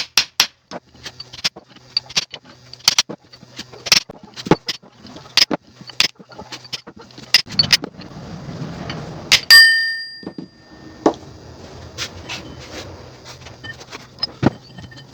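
Hammer striking a drift to knock the large driven ring gear off a Mercedes W123 rear differential carrier: a series of sharp metallic taps, irregular, one to two a second. About nine and a half seconds in, one louder blow leaves a clear ringing metal clang.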